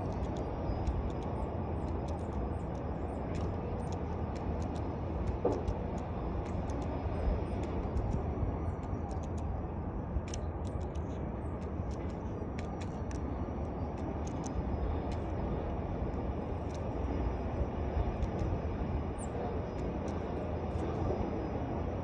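Short, high chirps of small birds scattered throughout, over a steady low rumble.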